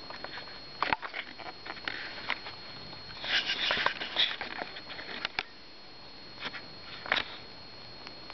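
Pet rabbit chewing and crunching dry food and sniffing close to the microphone, in irregular short clicks, busiest about three to four seconds in.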